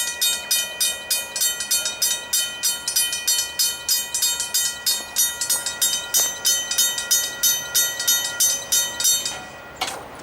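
Griswold mechanical level-crossing bell ringing rapidly, about four to five strokes a second, each stroke ringing with several steady tones. It stops shortly before the end, followed by a single sharp knock.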